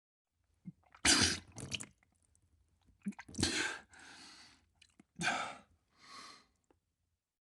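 Vomiting: three loud, harsh retching heaves about two seconds apart, each trailing off into a softer wet splatter.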